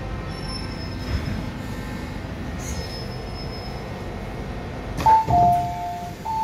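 MTR M-Train running slowly into a station with a low rumble and faint high wheel squeals. About five seconds in there is a clunk, then the door chime sounds twice, each time a high note dropping to a lower held note, as the doors open.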